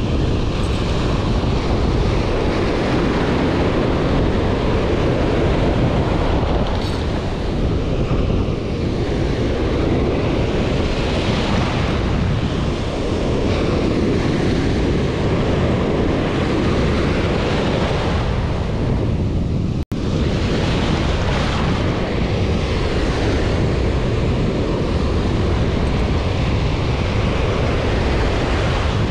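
Ocean surf breaking and washing up the beach in slow swells, under heavy wind buffeting on the microphone.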